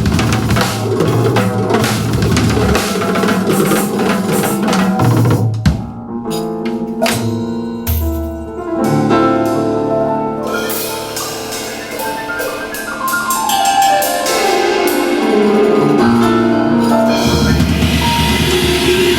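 Band music with a full drum kit. About six seconds in the drums thin out to a sparser passage of pitched notes. A long falling sweep follows, and the full drums come back near the end.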